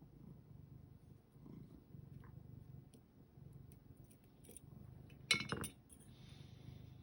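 Domestic cat purring close by in even pulses of about a second each. Over the purr come faint small metallic clicks of lock picks and tensioner working in a pin-tumbler lock, and one sharp metallic clink a little over five seconds in.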